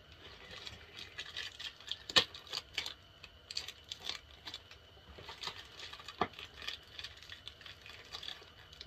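Plastic packaging wrap crinkling and rustling as a utility knife cuts and picks into a tightly wrapped parcel, with many small crackles and two sharper snaps, one about two seconds in and one about six seconds in.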